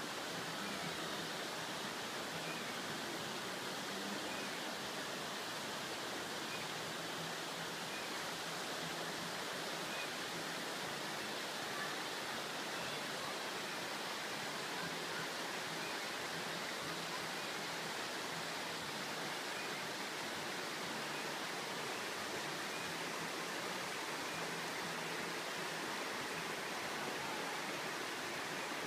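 Shallow, rocky creek rushing over stones, a steady, even rush of water with no break.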